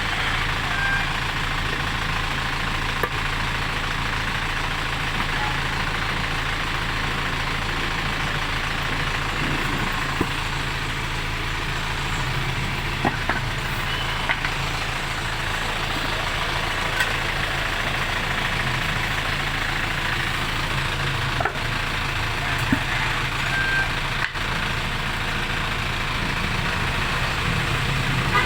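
An engine running steadily at idle, with a few light clicks and taps scattered through.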